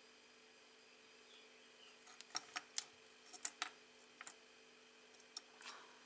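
Light, irregular clicks and taps as fingers handle a small FPV video transmitter board and its wires, turning it over on a wooden surface. They begin about two seconds in, over a faint steady hum.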